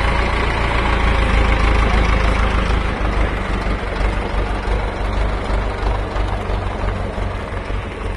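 Ford 6600 farm tractor's engine running steadily as it drives past close by towing a loaded trailer, slowly getting quieter as it pulls away.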